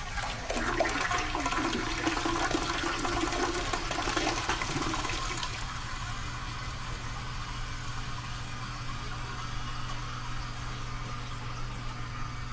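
Toilet flushing: a loud rush of water for about five seconds, then easing into a quieter steady hiss as it settles.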